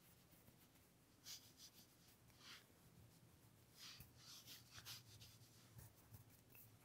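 Faint soft swishes of a makeup brush sweeping bronzing powder across the face: a series of short, light strokes.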